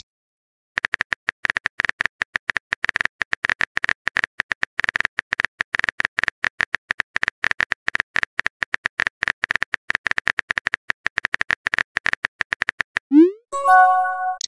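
Texting-app keyboard typing sound effect: rapid, irregular clicks as a message is typed out character by character. Near the end comes a short rising blip and a brief chime-like tone as the message is sent.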